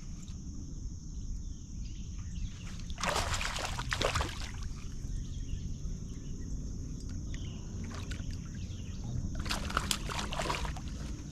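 Water splashing and sloshing around a small fishing boat in two bursts, a few seconds in and again near the end, over a steady high-pitched insect drone and a low rumble.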